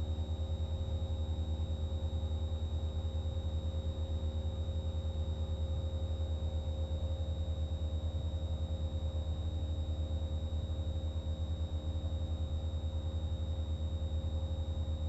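Single-engine piston trainer's engine and fixed-pitch propeller at full climb power, heard inside the cabin as a steady drone, with a thin steady high tone over it.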